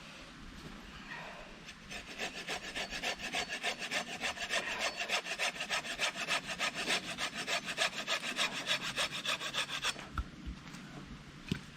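Hand saw cutting through a wooden branch with fast, even back-and-forth strokes, about four a second, for some eight seconds before stopping abruptly; a single click follows near the end.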